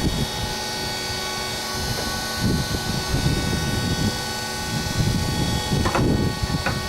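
Diamond saw on a stone-copying saw running with a steady whine, cutting hard red porphyry. A rough, uneven grinding rumble comes in about two and a half seconds in.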